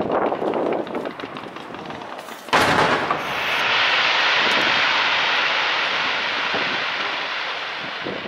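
Fireworks going off: crackling at first, a sharp bang about two and a half seconds in, then a long steady hiss that slowly fades.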